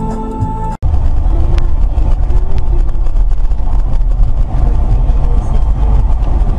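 Dash-cam recording from inside a moving car: a loud, steady low rumble of engine and road noise. It starts abruptly about a second in, cutting off background music.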